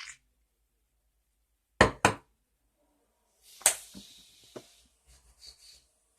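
Two sharp knocks in quick succession about two seconds in, then a sharp click followed by a brief rustling hiss, with a few faint small sounds near the end.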